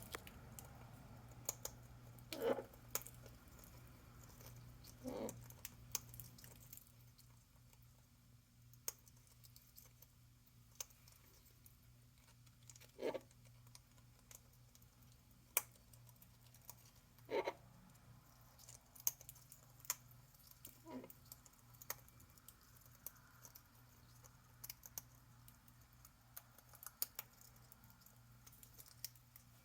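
Parrot with a food pellet, making many small scattered clicks as its beak works at the pellet, and about five short, soft happy sounds spread through.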